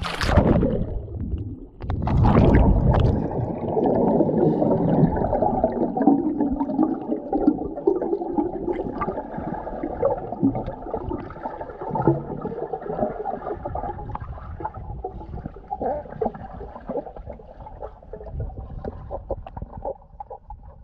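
Muffled underwater sound of a swimming pool through an action camera: a splash right at the start and a louder rush of water and bubbles about two seconds in, then a steady dull burble of water and bubbles with scattered small clicks as the swimmer moves through the water.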